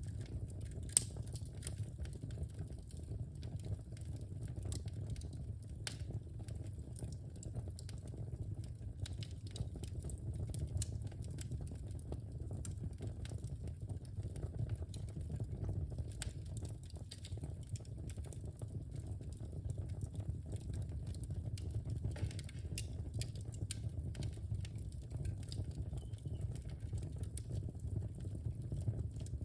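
Wood fire burning in a fireplace: a steady low rumble of flames with frequent small crackles and pops, and one sharper pop about a second in.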